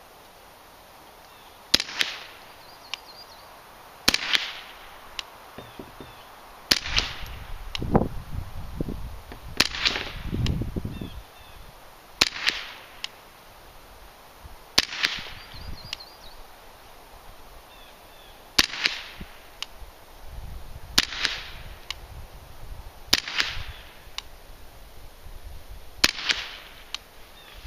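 Ten suppressed .22 LR shots from a Ruger 10/22 short-barreled rifle fitted with a suppressor, each a sharp crack. They are fired one at a time, every two to four seconds.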